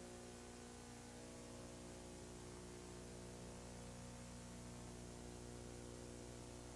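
Faint steady electrical hum with a ladder of evenly spaced overtones, under a constant hiss: the recording's background noise, with no other sound.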